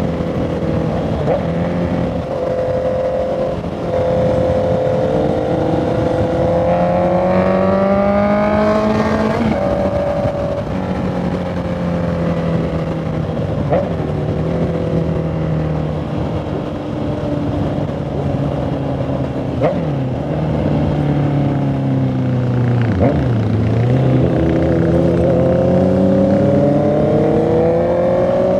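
Honda CB650R's inline-four engine and exhaust under way. The pitch climbs for about nine seconds, drops sharply and runs fairly steady, dips low a little after twenty seconds, then climbs again near the end.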